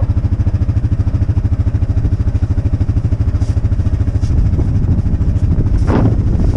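A farm vehicle's engine running steadily, with an even low pulsing throughout and a brief louder sound about six seconds in.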